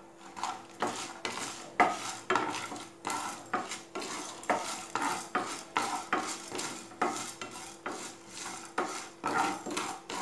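Wooden spatula stirring and scraping cashews, dals and dried chillies around a non-stick frying pan, in regular strokes about twice a second. A faint steady hum runs underneath.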